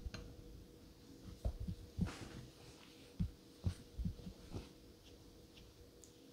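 Straight razor being given a few light laps on a wet Japanese natural stone with a thin Koma nagura slurry: a quiet run of soft taps and faint strokes between about one and a half and four and a half seconds in, as the blade is worked and turned over on its spine, under a faint steady hum.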